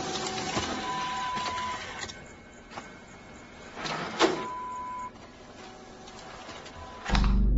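Office photocopier running, whirring and clicking, with a steady electronic beep about a second in and again about four seconds in. A sudden loud low rumble starts near the end.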